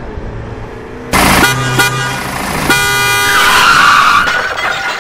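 Car engine running, then a car horn blaring loudly from about a second in and sounding again in the middle, with a squealing tone over it, as in a road-collision sequence; it fades near the end.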